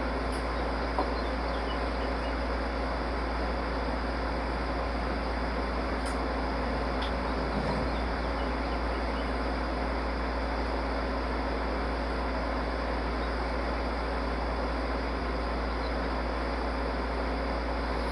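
Steady background hum and noise with a strong low drone, broken only by a few faint light clicks, about one second in and again around six and seven seconds.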